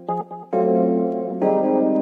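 Background music on a piano-like keyboard: a brief run of short notes, then held chords that change twice.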